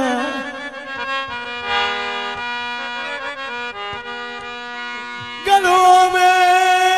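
Punjabi folk music: a free-reed keyboard instrument plays held tones and a short stepping melody. A louder lead line with a wavering, vibrato pitch comes in about five and a half seconds in.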